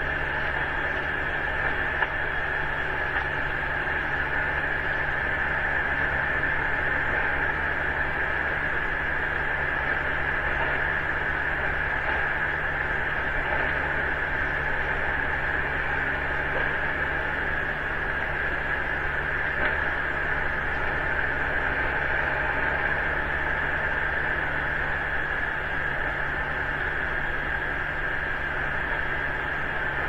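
Steady electronic hiss with a low mains hum: the self-noise of an outdoor surveillance webcam's audio feed. It runs unchanged, with no distinct animal or footstep sounds standing out.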